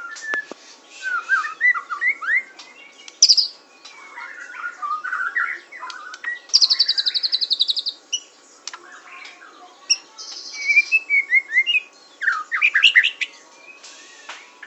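White-rumped shama (murai batu) singing a varied song of short rising and falling whistled phrases, with a fast rattling trill about halfway through and a buzzy phrase a little later. A few sharp clicks come right at the start.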